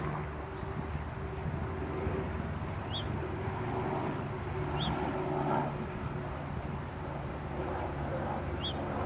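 Outdoor ambience: a steady low hum with a haze of noise that swells briefly around the middle. A short, high chirp repeats every two seconds or so.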